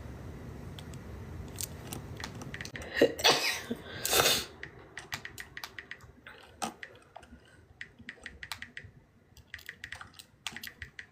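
A woman sneezing twice in a sneezing fit, the sneezes about a second apart some three seconds in, followed by scattered small clicks and rustles.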